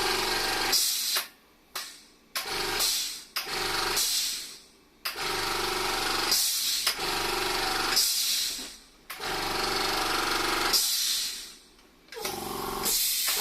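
Try-POWER four-cylinder air compressor rattling as it runs, switched on and off repeatedly in bursts of one to four seconds. The owner takes the sound of the reassembled pump for a sign of a compression leak.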